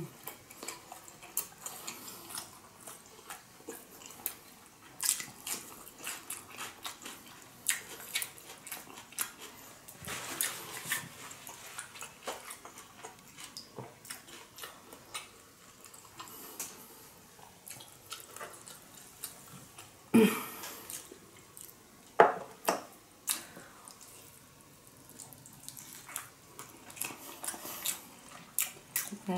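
Close-miked wet chewing of salmon nigiri sushi: irregular sticky clicks, smacks and squelches from the mouth, with a couple of louder mouth sounds about two-thirds of the way through.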